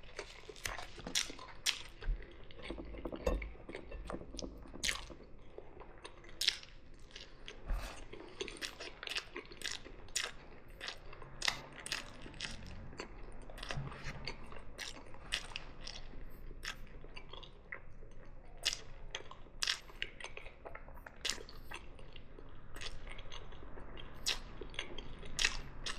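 A person chewing food with wet mouth sounds and many sharp little clicks and crackles, coming irregularly, a few each second.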